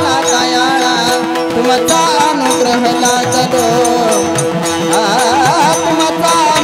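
Warkari kirtan music: a voice singing a long, wavering melodic line over steady held accompanying notes, with rapid metallic cymbal strikes and drumming throughout.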